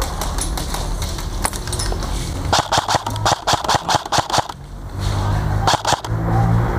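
Airsoft rifle firing a quick string of shots, about six a second for roughly two seconds, then two or three more shots about a second later, over the low rumble of the player moving.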